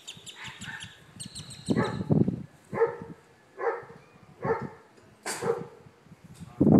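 German Shepherd puppy barking repeatedly, about once a second: wary barks at a plant pot that is rolling in the wind. The first bark is the loudest.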